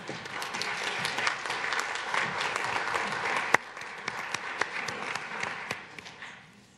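Congregation applauding, a dense patter of clapping that thins after about three and a half seconds and dies away near the end.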